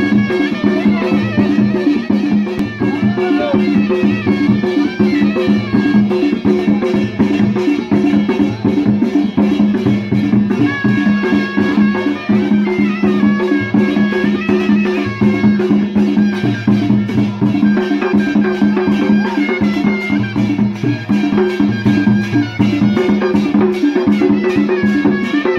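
Balochi lewa dance music: a reed pipe plays a wavering melody over a held low note, with a drum beating a steady rhythm underneath.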